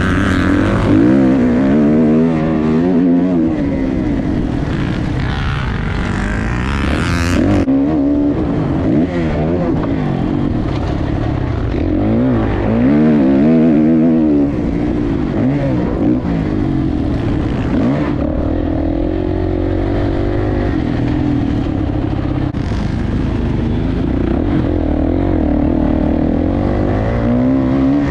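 Motocross dirt bike engine revving up and down again and again as the throttle opens and closes.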